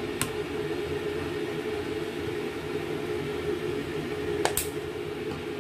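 Steady background hum with two sharp clicks, one just after the start and a louder one about four and a half seconds in.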